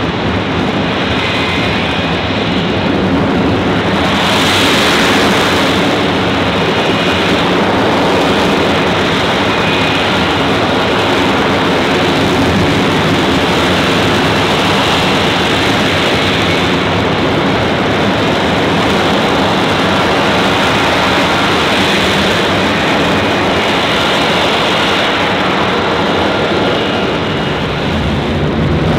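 F-35B Lightning II hovering on its F135 engine and shaft-driven lift fan: a loud, steady jet roar with faint whining tones above it, swelling briefly about four seconds in.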